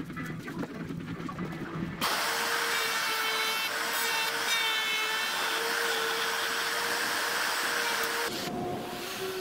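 Table-mounted router with a bearing-guided bit running and cutting, as the ipe steering-wheel hoop is fed around the bit against its template. It starts sharply about two seconds in and runs steadily with a high whine until a little past eight seconds.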